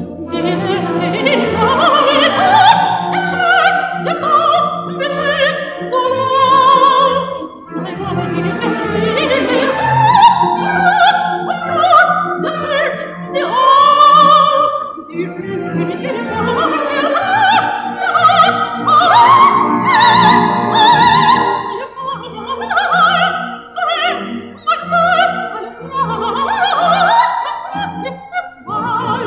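Operatic singing with a strong vibrato over orchestral accompaniment, playing continuously as runway music.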